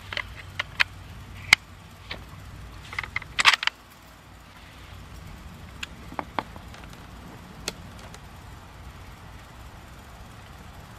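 Sharp metal clicks and clacks from loading and working the action of a Ruger American Ranch bolt-action rifle, loudest in a quick cluster about three and a half seconds in. After that only a few faint clicks over a low steady background.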